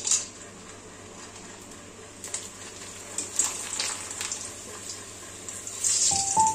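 Colourful kachri (dried fryums) sizzling and crackling in hot oil in a steel kadhai as they puff up. Background music comes in near the end.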